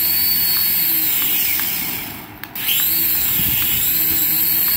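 Small electric motors of a toy RC coaxial helicopter spinning its rotors with a high whine. The sound fades out about two seconds in and then spins back up with a rising whine.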